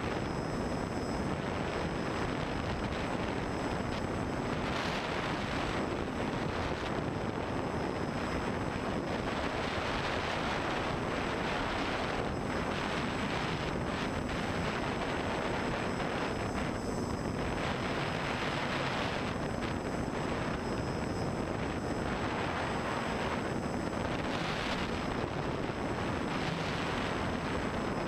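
Onboard sound of an FPV quadcopter in flight: its T-Motor brushless motors and propellers give a steady rushing whir with a thin high whine. The rush swells and eases every few seconds.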